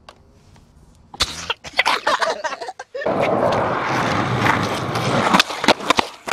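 Skateboard on asphalt. A few sharp clacks of the board come about a second in, then the wheels roll steadily on the street from about three seconds in, with more clacks of the board being popped and hitting the ground near the end.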